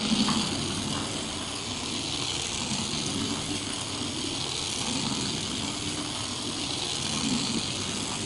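Remote-control toy mouse's small electric motor and wheels running, a steady whirring hiss that starts suddenly.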